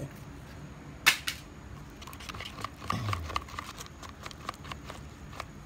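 A flat stick stirring epoxy resin and hardener with chopped glass fibres in a plastic mixing cup: irregular light clicks and scrapes of the stick against the cup, with a sharp knock about a second in.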